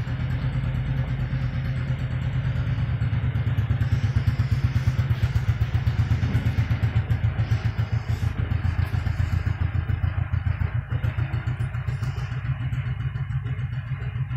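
An engine running with a steady, pulsing low beat, getting a little louder about four seconds in and then easing back.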